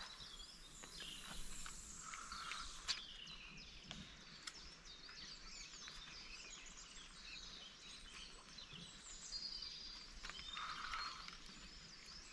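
Several songbirds singing together, many short high chirps and trills overlapping throughout, with one sharp tick about three seconds in.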